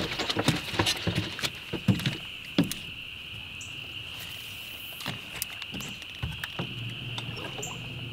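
A steady high insect drone, with scattered clicks and knocks over the first few seconds. A low steady hum comes in near the end.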